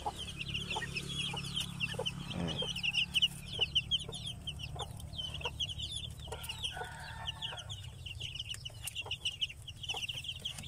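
A brooder full of one- to two-week-old native chicks peeping nonstop, many short high chirps overlapping, with scattered light clicks and a steady low hum underneath.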